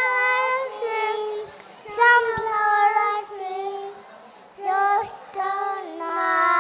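A young child singing a nursery rhyme in a high voice, in short sung phrases with brief pauses between them.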